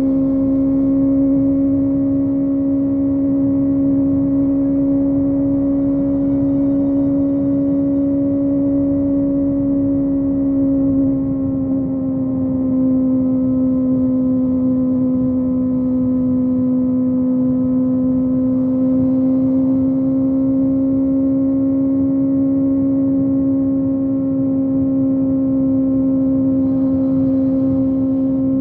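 Kawasaki ZX-25R's 249 cc inline-four engine running at steady, fairly high cruising revs under way. The revs ease off slightly about 11 seconds in and then hold again, with wind and road rush underneath.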